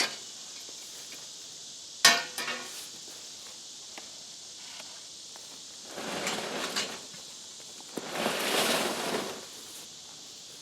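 Steady insect chirring, with one sharp metallic clank about two seconds in and two longer rough scraping, shuffling noises later on.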